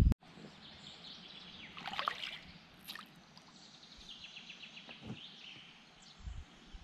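A loud rumbling noise cuts off abruptly at the start. Small birds then chirp and trill in short repeated bursts over a faint outdoor background, with a louder call about two seconds in.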